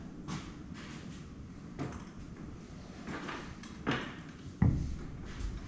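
Scattered clinks and scrapes of metal hand tools being handled in a shop, with one heavy thump about four and a half seconds in.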